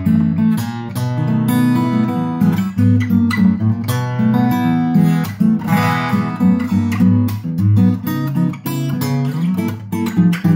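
Cat's Eyes CE-200 dreadnought acoustic guitar, a 1970s Tokai build with a spruce top and mahogany back and neck, strung with new 11-gauge strings, played fingerstyle: a continuous run of bass notes and chords.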